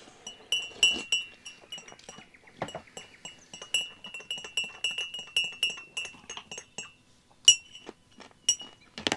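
Utensil clinking repeatedly against a ringing dish at a meal: a quick run of light clinks with a steady ringing tone, then a few louder single clinks near the end.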